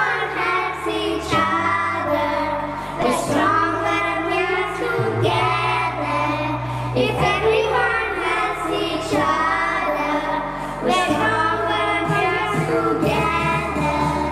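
Young girls singing a song together over an instrumental backing track with a stepping bass line.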